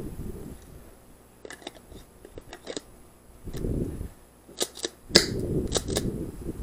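Airsoft guns firing: a scatter of sharp snapping shots, faint at first and louder and closer together in the second half, over low rumbling handling and movement noise.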